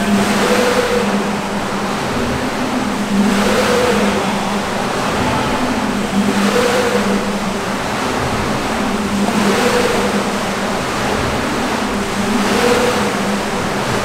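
Hydraulic wave generator of a large wave flume running with a steady hum that swells about every three seconds, over the rush and splash of waves breaking along the tank.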